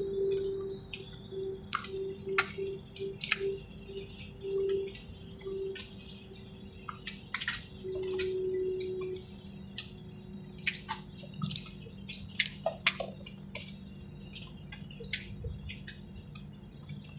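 Airliner cabin sound: a low steady hum, with irregular sharp clicks and rattles throughout and a faint wavering tone that pulses on and off through the first half.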